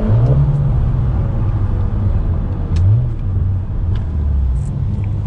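Car engine and road rumble while driving, the engine note rising and dipping near the start and again about three seconds in.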